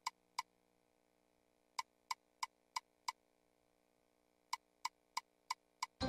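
Video slot machine's reel-stop ticks: short, clicky beeps about a third of a second apart as the five reels stop one after another. Two runs of five, the first about two seconds in and the second about four and a half seconds in, with two more ticks at the very start.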